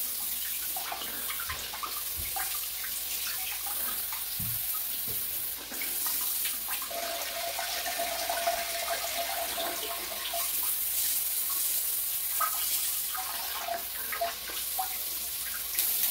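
Non-electric hot-and-cold bidet attachment spraying water from its nozzle into the toilet bowl during a test run: a steady hiss of running water with small splashes. A faint steady tone sounds for about three seconds midway.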